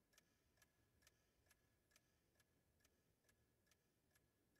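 Clock ticking very faintly and evenly, a little over two ticks a second.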